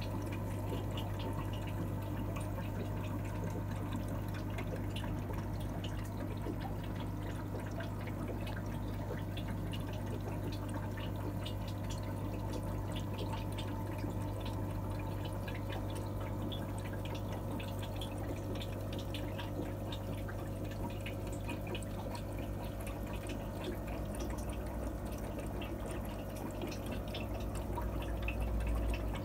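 Aquarium water dripping and trickling as many small scattered clicks over a steady low hum. A louder low rumble comes in near the end.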